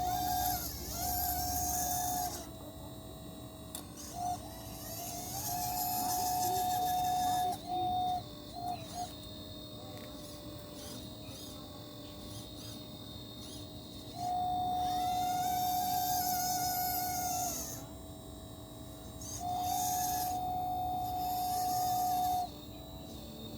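1/12-scale RC excavator's electric motors whining at a steady pitch in four bursts of a few seconds each, as its controls are worked. A fainter steady hum carries on between the bursts.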